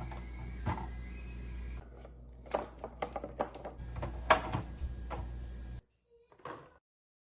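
Household items being handled: a quick run of sharp clicks and knocks, like containers and shelves being moved about, over a steady low hum that cuts off abruptly about six seconds in.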